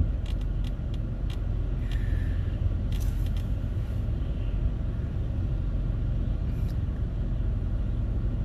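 Steady low rumble of a car heard from inside its cabin, with a few faint ticks.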